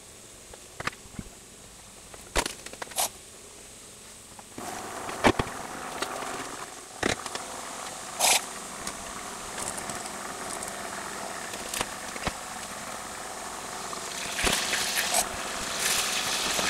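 Margarine melting in a stainless steel saucepan over medium heat, crackling with scattered sharp clicks. About four and a half seconds in a steady sizzling hiss comes in and grows louder toward the end as the fat heats.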